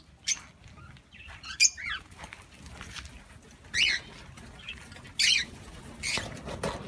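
Aviary birds, cockatiels and lovebirds among them, giving a few short chirping calls every second or so, with wings flapping as a bird flies across near the end.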